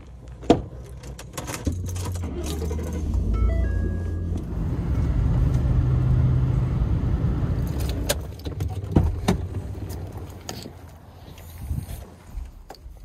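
Pickup truck running, heard from inside the cab: a steady low engine rumble that builds after the first couple of seconds and eases off near the end, with a few sharp clicks and knocks.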